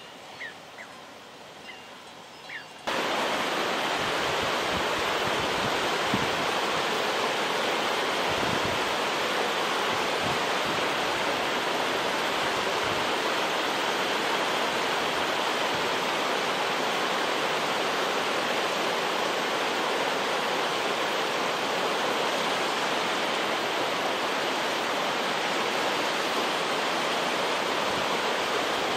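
Mountain stream rushing over rocks, a loud, even, unbroken rush that cuts in about three seconds in.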